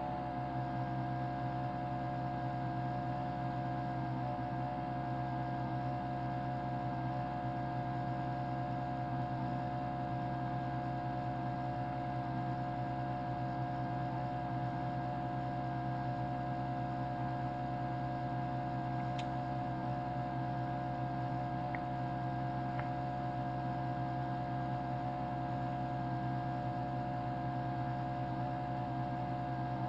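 Steady hum and whine of a 32-line colour mechanical television running, several held tones that do not change, with a couple of faint ticks in the second half.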